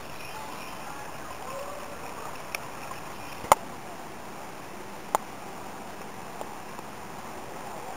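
Steady outdoor background hiss, broken by a few sharp clicks or knocks, the loudest about three and a half seconds in.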